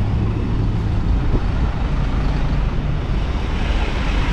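Steady low rumble of a motor vehicle on the move, with road and wind noise.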